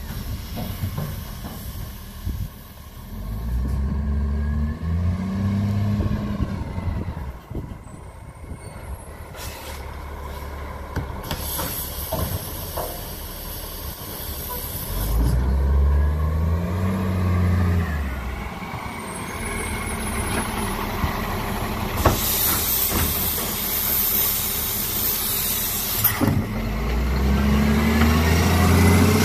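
Diesel engine of an Iveco side-loader recycling truck revving up and easing off three times as it pulls up to bins and works its hydraulic bin lifter. Two long hisses of air come in between the revs.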